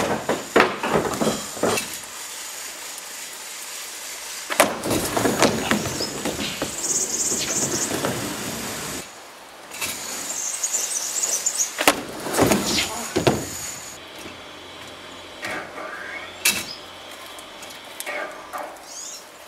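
Skateboard landing hard on a plywood mini ramp after a drop-in from a wall, then its wheels rolling across the wood, over several takes. The board clacks and thuds at each landing. Short high squeaks come twice in the middle.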